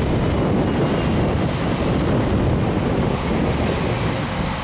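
Scania truck pulling a tanker semi-trailer drives past close by, its engine and tyres rumbling steadily, with wind buffeting the microphone. A short high hiss sounds about four seconds in.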